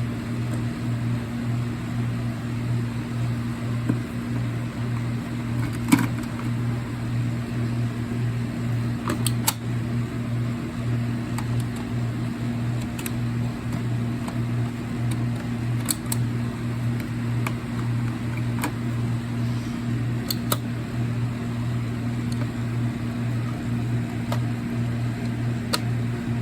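A steady low electric hum throughout, with a few short sharp clicks every few seconds from 9-volt batteries being fitted into smoke alarm battery drawers.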